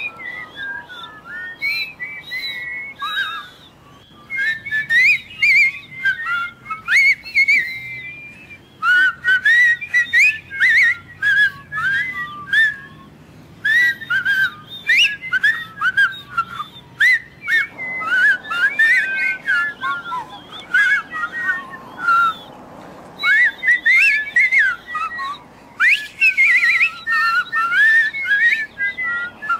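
People whistling by mouth: quick, warbling runs of gliding notes in bursts with short pauses, sometimes several whistlers at once.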